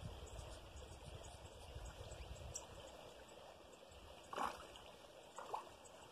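Cast net being hauled in through shallow pond water: faint water sounds, with two short splashes about four and a half and five and a half seconds in.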